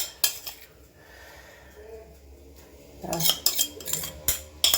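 Metal kitchen utensils clinking and knocking against dishes: a couple of sharp clinks at the start, then a quicker run of clinks from about three seconds in.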